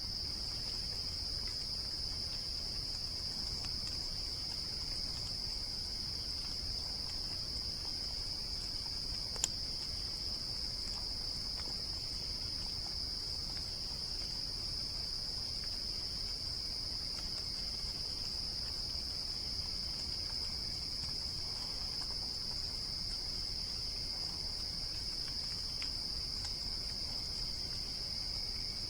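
Steady chorus of insects such as crickets, a continuous high-pitched trill that does not let up, with one faint click about nine seconds in.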